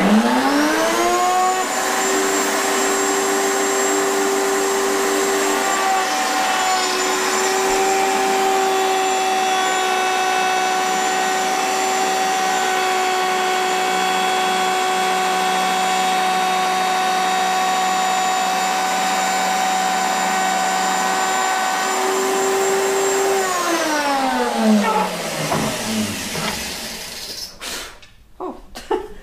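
Router motor spinning up to speed and running with a steady high whine while a finger groove is cut into the edge of a cutting board made from a countertop sink cutout, then switched off and winding down about 24 seconds in.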